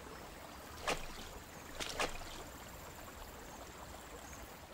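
Water splashing from a giant barred frog's swimming kicks: a steady rush of water with short, sharp splashy swishes about a second in and twice just before and after two seconds in.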